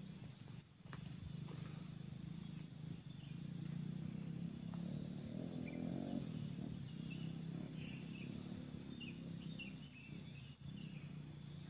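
Countryside ambience: scattered short high chirps and insect calls over a steady low hum that swells a little around the middle.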